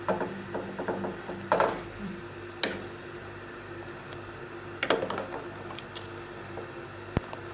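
A handful of scattered clicks and clinks of a utensil against a cooking pot as a clove-studded lemon is turned in boiling sugar water, over a steady low hum.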